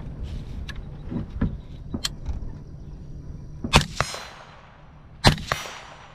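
Pickup truck rumbling as it rolls, fading out as it comes to a stop, with a few small rattles. Then two rifle shots about a second and a half apart, each echoing out.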